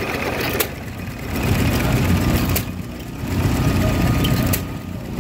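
Vintage hit-and-miss gas engines running: a sharp crack about every two seconds, three times, over a steady low chugging.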